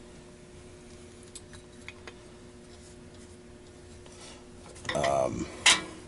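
Small metal parts of a pulse furnace's flapper valve assembly being handled and cleaned: faint scattered clinks and ticks over a steady low hum, then a short pitched sound and a single sharp metallic click near the end.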